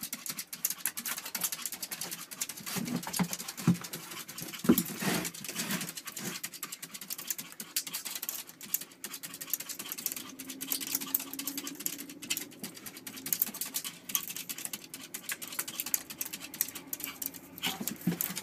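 Small white dog's claws scratching and pawing rapidly at a door, a dense run of irregular scratches and clicks.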